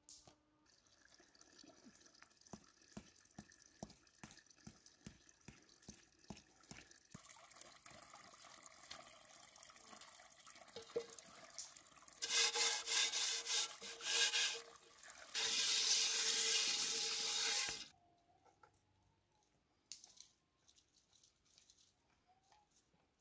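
Water from a small stream being poured and splashed while vessels are rinsed and filled. A run of light knocks comes first over a faint trickle, then two loud spells of pouring water, the second of which stops suddenly.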